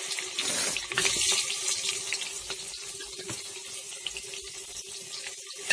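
Sliced onions sizzling in hot oil in a brass cooking pot, a steady hiss that slowly fades as the onions settle into the oil.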